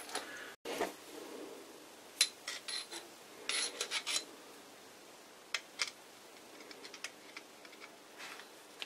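Light metallic clicks and short scrapes of a thin steel rod working inside a brass oiler body, pushing a braided cotton wick into its bore, in small clusters about two and three and a half seconds in, then a couple more a little later.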